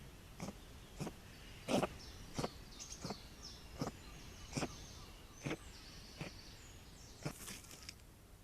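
A fox cub hiccupping: about ten short, sharp hiccups in a steady rhythm, roughly one every two-thirds of a second, with faint high chirps in between.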